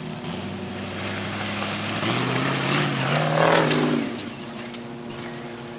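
Off-road 4x4 engine revving up under load about two seconds in, loudest around three and a half seconds, then easing back to a steady lower run.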